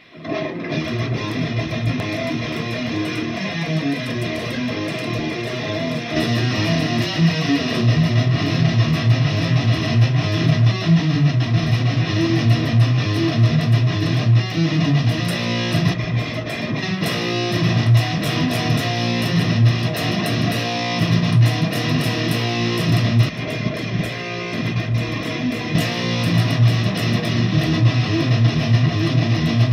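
Electric guitar music, starting suddenly and continuing at a steady, loud level.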